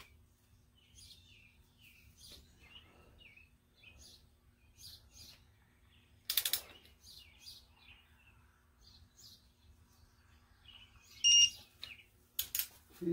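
Digital torque wrench ratcheting on cylinder head bolts: a short burst of clicks about six seconds in and another near the end. Just before the last burst there is a brief electronic beep, the wrench signalling that the set torque has been reached. Small birds chirp faintly throughout.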